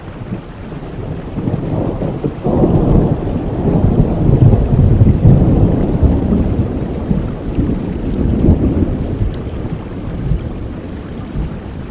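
Steady rainfall with a long roll of thunder that builds about two seconds in, rumbles loudest in the middle and slowly dies away near the end.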